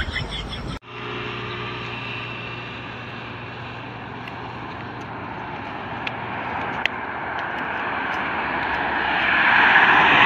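Music cuts off under a second in, giving way to a steady rushing vehicle noise, like traffic on the highway, that grows louder toward the end. A single sharp smack comes about seven seconds in.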